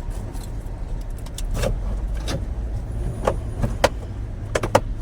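Sharp metallic clinks and knocks of hand tools on metal parts during truck repair work, about six spread through, over a steady low rumble.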